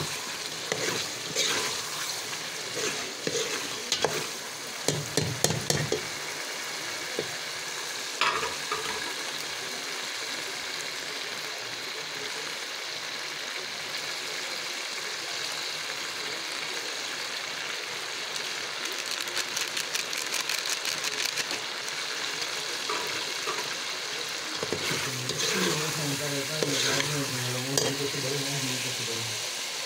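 Chicken karahi sizzling and frying in a metal pot, with a spoon stirring and clicking against the pot, most often in the first six seconds.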